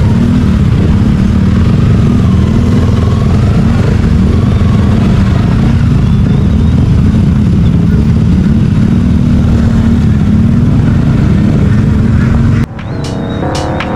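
Motorcycle engines running at low speed, a steady low rumble whose pitch wavers slightly as the bikes creep along. It cuts off abruptly near the end.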